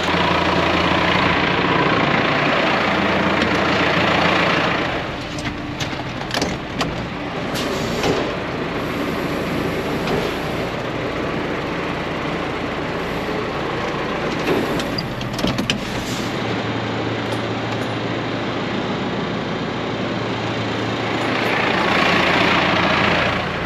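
John Deere 6430 tractor's diesel engine running steadily. A louder rushing noise covers the first few seconds and comes back near the end, with scattered sharp clicks and knocks in between.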